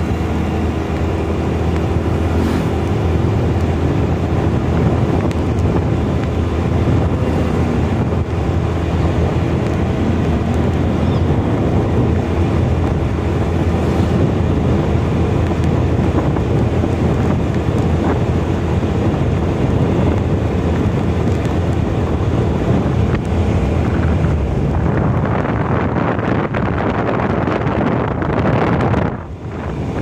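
Wind buffeting the microphone of a moving TVS scooter, over the scooter's small engine running and its tyres on the road. The noise dips briefly near the end.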